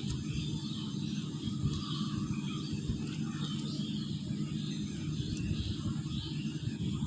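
Birds chirping over a steady low hum, with a few faint clicks.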